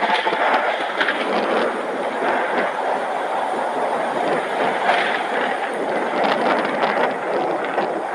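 Heavy rain pouring down in a thunderstorm: a steady, dense hiss with many small drop ticks.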